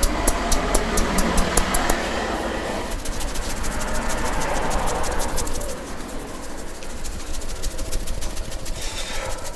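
Rhythmic percussive massage: a barber's hands tapping and slapping on the head and upper body, about four strikes a second, then faster and softer from about three seconds in, over a steady low rumble.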